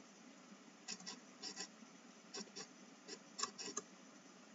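Faint computer keyboard typing: about ten short key clicks at an uneven pace.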